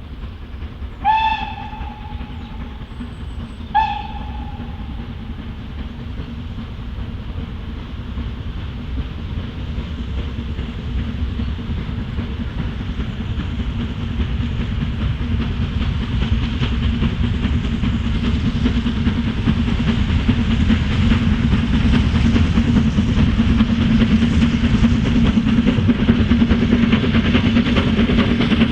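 Steam locomotive whistle sounding two short blasts, the second shorter, followed by the train approaching, its running rumble growing steadily louder.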